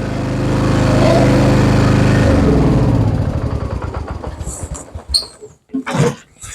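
John Deere F525 riding mower's engine running steadily, then falling in pitch and dying away as it is shut off about two to three seconds in. A few short knocks follow near the end.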